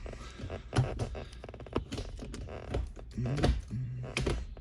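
Short shifter in a 1994 BMW 325i being worked through the gears: sharp clicks and knocks from the shift lever and linkage, with a quick run of clicks about a second in.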